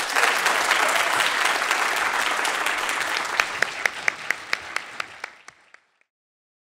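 Audience applauding, dense at first, then thinning into a few separate claps that fade out about six seconds in.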